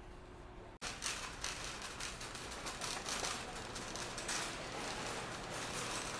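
A metal shopping cart being pushed along, its wheels and wire basket rattling in a fast, uneven stream of clicks that starts about a second in.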